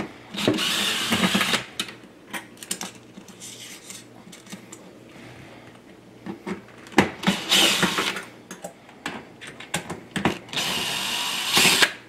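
Cordless drill-driver with a T20 Torx bit backing out sheet-metal screws: three short runs of the motor, each about a second long, with clicks and taps of the bit and screws in between.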